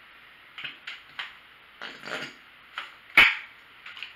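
Handling noise from a plastic squeeze ketchup bottle and food packaging on a table: a series of light clicks and knocks, a brief rustle about two seconds in, and one sharp, louder knock just after three seconds.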